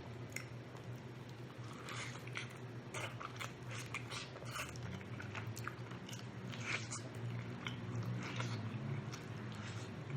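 A person biting and chewing food close to the microphone, with scattered small crunches and mouth clicks.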